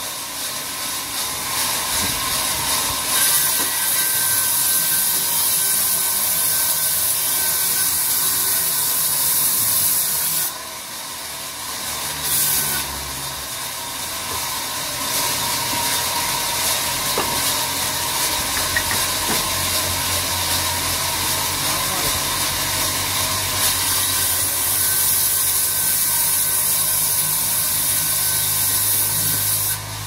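Large sawmill band saw ripping lengthwise through a mahogany log: a steady, high hissing rasp of the blade in the wood that drops away for a moment about ten seconds in, then resumes. A low hum builds through the second half.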